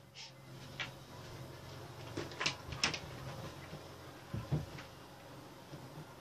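Faint scattered knocks, clicks and rustles of someone moving about out of sight, with a few soft clicks in the first three seconds and a pair of dull thuds about four and a half seconds in.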